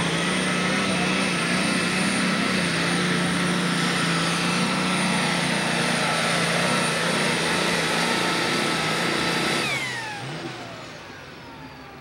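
Super Stock pulling tractor's turbocharged diesel engine at full throttle under load as it drags the sled, loud and steady with a high turbocharger whine over the engine. About ten seconds in the throttle is cut at the end of the pull: the engine noise drops sharply and the whine falls away as the turbos spool down.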